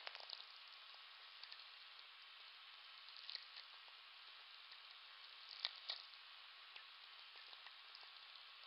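VLF natural radio from a very-low-frequency receiver: a faint steady hiss of static broken by scattered sharp clicks and crackles of sferics, the radio pulses from distant lightning. The loudest is a close pair of crackles a little past halfway.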